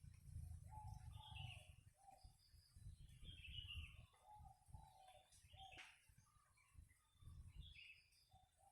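Faint birdsong from several birds in a garden: short chirping phrases repeated every second or two, with lower repeated notes from another bird, over a low rumble.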